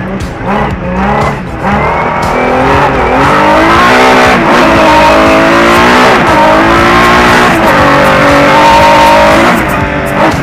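Rallycross car's engine heard from inside the cockpit, revving up and down through the gears. The pitch climbs and holds, drops sharply about six seconds in, climbs again, and drops once more near the end.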